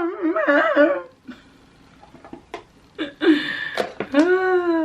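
A woman's voice singing without words, a long wavering note that breaks off about a second in; after a quiet stretch with a few light taps come two more drawn-out sung notes near the end.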